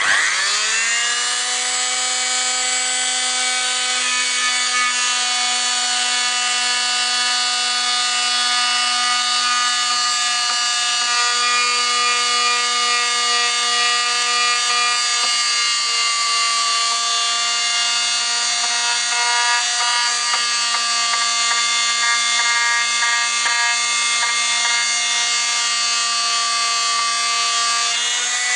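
Fein Multimaster oscillating multi-tool switched on, its pitch rising quickly as it comes up to speed, then running with a steady pitched whine while sanding a profile with a profile sanding attachment.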